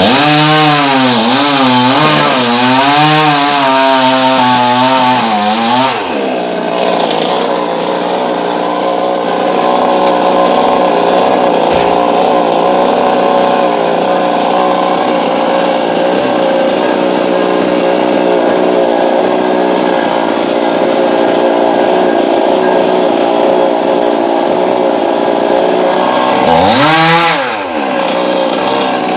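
Chainsaw cutting into a coconut tree. For about the first six seconds its engine speed rises and falls as it bogs down in the cut, then it runs steadily at high speed. Near the end the engine drops briefly and revs back up.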